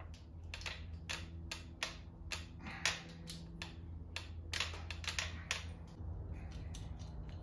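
Hand ratchet wrench clicking in short strokes, about three sharp clicks a second, over a steady low hum.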